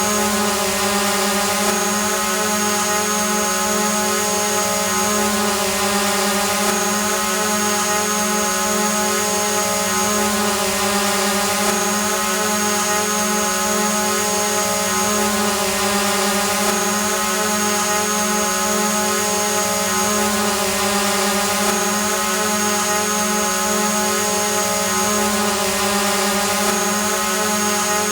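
Quadcopter drone hovering: the steady buzzing whine of its spinning propellers and motors, with a thin high tone that drops in and out every few seconds.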